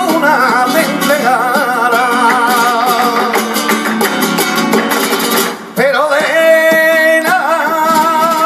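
Male flamenco singer singing colombianas in long, wavering held notes over a flamenco guitar. The voice breaks off briefly about five and a half seconds in, then starts a new held line.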